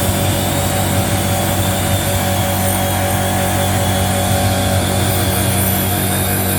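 Woodworking machinery of a finger-jointing line running steadily, its electric motors and cutter spindles giving a constant loud hum with a low drone under a dense noise.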